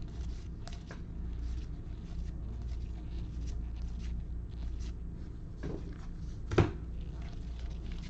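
Stack of baseball trading cards being flipped through by gloved hands: soft, irregular flicks and slides of card stock, with one sharper tap about six and a half seconds in, over a steady low hum.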